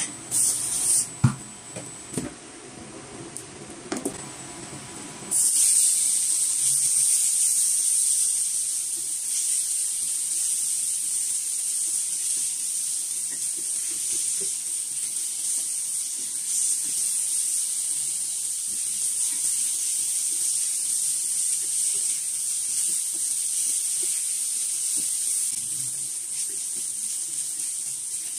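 Sliced pork frying in hot oil in a pan, starting with a sudden loud sizzle about five seconds in when the meat goes in and sizzling steadily as it is stirred with a wooden spatula. A few sharp knocks come before the sizzle.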